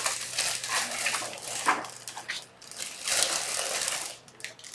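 Sheets of printed paper being shuffled and leafed through, rustling in uneven spells with a few sharp crisp ticks.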